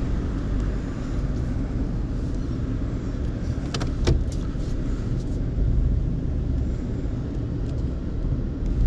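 A towing vehicle's engine running in a steady low rumble while it manoeuvres a trailer into place. A few sharp clicks come about four seconds in.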